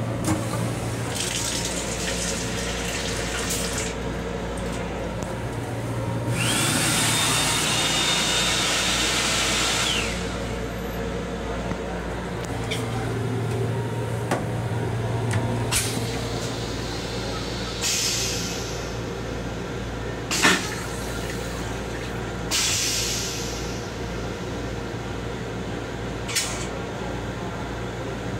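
Sensor-operated sink unit in a commuter-train restroom: the faucet running briefly, then a loud blowing hiss with a steady whine for about three and a half seconds from the hand dryer. Further short bursts of running water follow over the railcar's steady low hum, with a single sharp knock about twenty seconds in.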